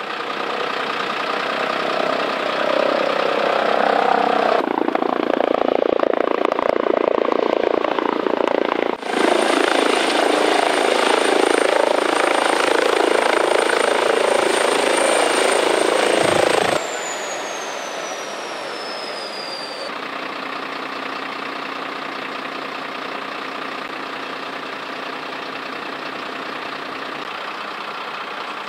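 Eurocopter EC135 trauma helicopter running on the ground: loud rotor noise with a high, steady turbine whine, which falls in pitch over a few seconds about two-thirds of the way through. Then a quieter, steady engine hum of idling emergency vehicles.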